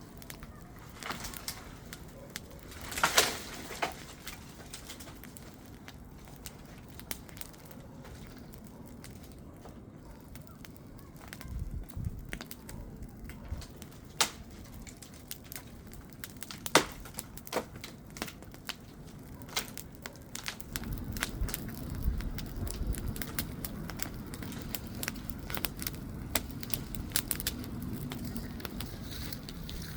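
Bonfire crackling, with sharp pops scattered throughout and a louder burst about three seconds in. Spells of low rumbling come and go in the middle and second half.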